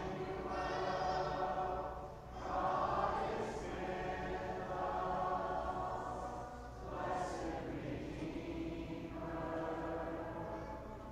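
Church congregation singing a hymn together, long sung phrases with brief pauses for breath about two and seven seconds in.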